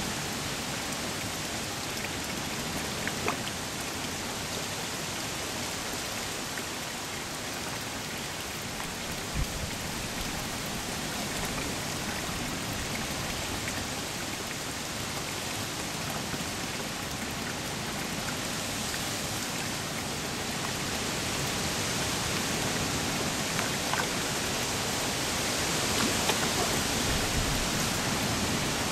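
Steady rush of splashing pond water, like rain on the surface, growing somewhat louder about two-thirds of the way through. A few short sharp splashes stand out from it.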